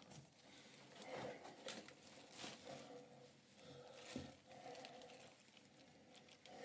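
Near silence: faint room tone with a low steady hum, a few small clicks and a soft thump about four seconds in.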